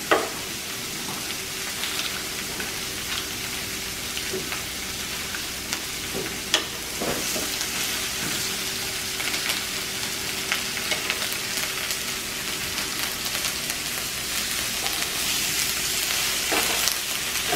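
Butter and vegetables sizzling on a hot griddle, a steady hiss that grows a little louder about halfway. Scattered sharp clicks over it, one louder about six and a half seconds in.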